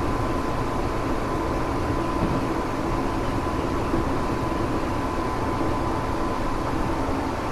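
Tokyo Metro 7000 series armature-chopper electric train running at a steady pace, heard from on board: wheel and rail noise with a steady high whine. The car has the abnormal motor noise known as a light 'jet sound'.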